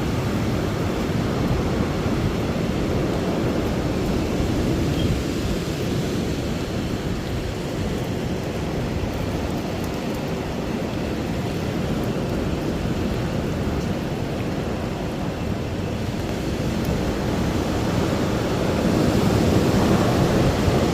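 Strong storm wind blowing in a steady low rush, growing louder near the end.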